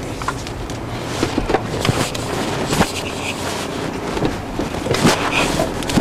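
Car engine running at low speed inside the cabin while the car is parked, with a steady low hum and a few small clicks and knocks.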